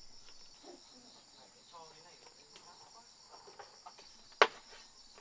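Insects chirping steadily in a high, pulsing band; about four seconds in, a single sharp knock of a chop on the wooden chopping block, the loudest sound here.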